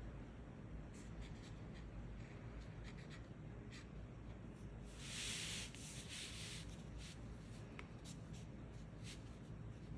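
Brush pen tip stroking across paper in short, light scratches as characters are written. About five seconds in comes a louder rustle lasting about a second and a half, as the sheet of paper is slid across the table.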